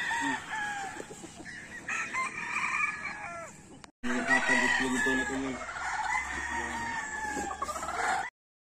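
Several gamecocks crowing over one another, long crows overlapping. The sound breaks off abruptly about four seconds in, picks up again with more crowing, and cuts off suddenly near the end.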